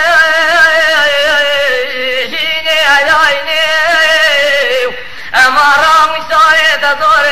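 A male dengbêj singer's voice holding long, wavering notes in a Kurdish song, with a short break for breath about five seconds in.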